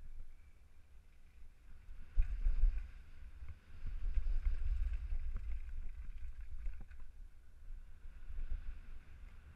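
Wind buffeting the microphone of a helmet-mounted camera as an all-mountain bike rides down a dirt downhill trail, with small clicks and rattles from the bike over the rough ground. The rumble swells about two seconds in and again from about four seconds.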